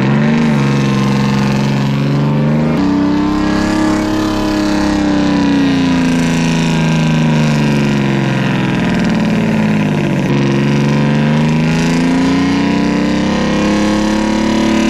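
Diesel engine of an old Ford mixer truck running on starting fluid sprayed into its air intake, revved hard up and down in slow swells. It catches right at the start.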